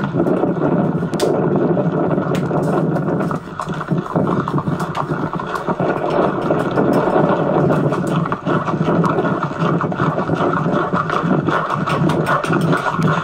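Old camcorder footage of a horseback ride playing through a television speaker and re-recorded: a loud, steady rushing noise with scattered faint clicks.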